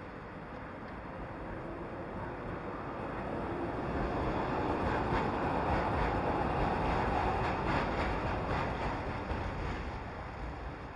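Tram passing on a steel truss bridge: a rumble of wheels on rails that swells over a few seconds and fades as it goes by, with light clicking at its loudest.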